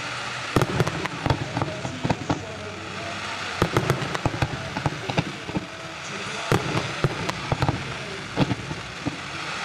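Fireworks going off: many sharp bangs and cracks at irregular intervals, some in quick clusters, over a steady background rumble.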